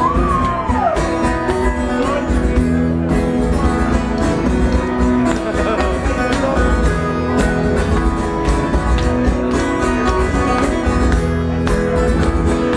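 Live band playing the instrumental intro of a song just after a count-in: guitar to the fore over held bass notes and a steady beat.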